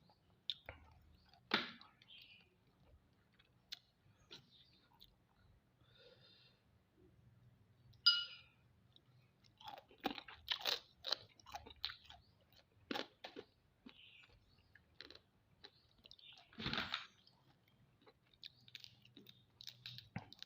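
Someone eating mud crab: irregular cracks and crunches of shell being bitten, with chewing between them. There is a brief high-pitched squeak about eight seconds in, and the crunches come thicker after ten seconds.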